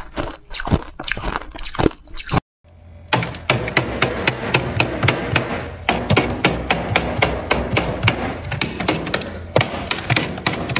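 Crunching bites of freezer frost for about two seconds, then, after a brief cut to silence, thick freezer frost being chipped and scraped off a freezer wall with a small tool: a fast, steady run of sharp scraping ticks.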